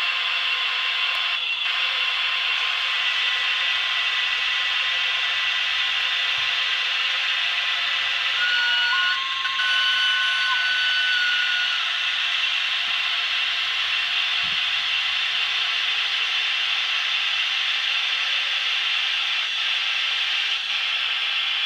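Electric-locomotive running sounds from the model locomotives' ESU sound decoders, played through small speakers: a steady rush with no bass. A few steady high tones come in about eight seconds in and stop about four seconds later.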